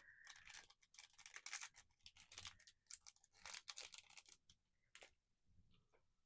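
Faint crackling and clicking of plastic packaging and a small plastic figure being handled by hand. The crackles come in quick irregular runs and stop about five seconds in.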